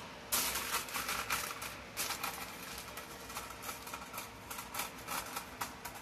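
Aluminum foil crinkling as it is laid over and pressed down around the mouth of a glass jar: an irregular run of crackles that starts about a third of a second in and thins out toward the end.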